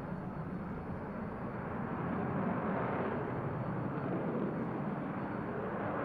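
Jet noise from the F-15QA Advanced Eagle's two General Electric F110-GE-129 turbofans as it turns through its display, a steady rushing roar that grows slightly louder about two seconds in.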